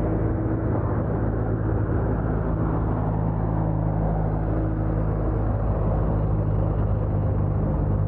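Steady rumble of wind and road noise from a bicycle being ridden, with a low steady hum under it.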